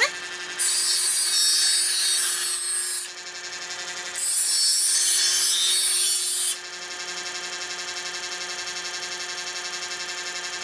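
Chef's Choice EdgeSelect 120 electric knife sharpener running with a steady motor hum while a kitchen knife is drawn through its diamond-abrasive slots twice, each pass a loud grinding hiss of about two and a half seconds. After the second pass, about six and a half seconds in, the motor hums on alone.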